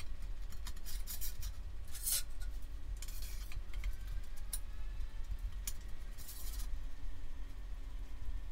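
Intermittent short scraping and rubbing sounds from hand work on metal parts of a VW Beetle front beam, about seven separate strokes, over a low steady hum.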